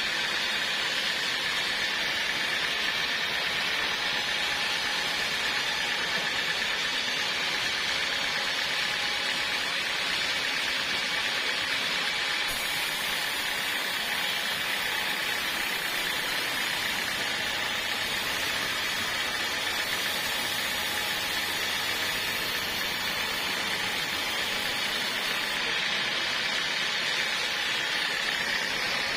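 Portable sawmill running steadily, a continuous hiss with a thin whine on top that does not break or change.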